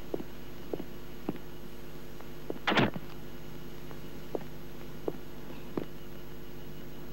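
Footsteps and a door being shut: a few soft, irregular taps, a louder thud about three seconds in, then three more taps about two-thirds of a second apart. A steady low hum from the old film soundtrack runs underneath.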